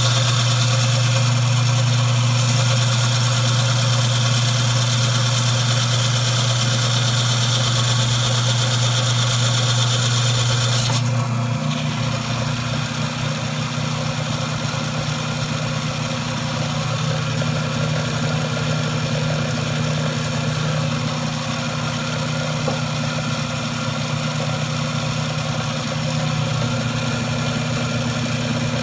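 C-40 diamond band saw running with a steady motor hum, and a high grinding hiss as the wet blade cuts through a porcelain catch tray. About 11 seconds in the hiss stops suddenly as the cut goes through, and the saw runs on free with only its hum.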